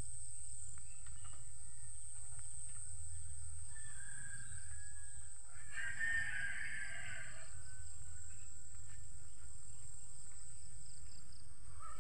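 A rooster crowing once, about six seconds in, over a steady high-pitched drone.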